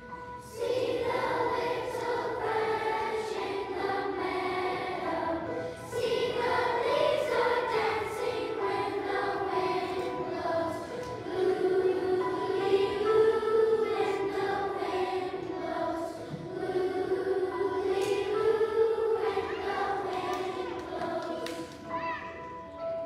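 A children's choir of third graders singing a song together, starting about half a second in.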